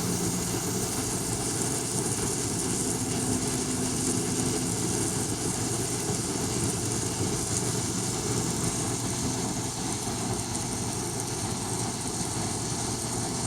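Steady running hum of an N-scale model train, continuous noise with a few faint low tones that shift slightly.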